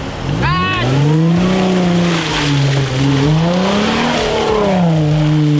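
Jeep Wrangler engine revving under load as it drives through deep mud, its pitch climbing and then rising and falling several times as the throttle is worked, with a hiss of tyres churning the mud.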